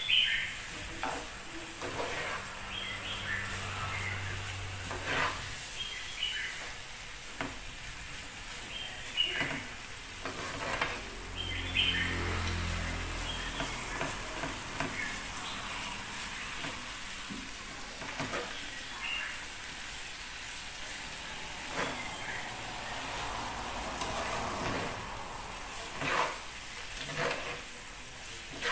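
Snails in their shells and shredded banana flower sizzling in a Sunhouse frying pan on a gas burner while being stir-fried with chopsticks and a spoon, with frequent irregular clicks and clacks of the utensils and shells against the pan.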